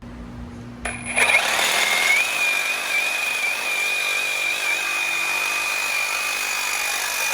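Reciprocating saw with a Diablo AMPED carbide thin-metal blade cutting thin steel pipe. The cut starts suddenly about a second in and then runs steadily, with a high metallic squeal from the blade in the metal.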